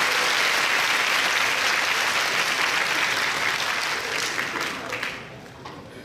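Audience applauding, a dense steady clapping that dies away about five seconds in, leaving a few scattered claps.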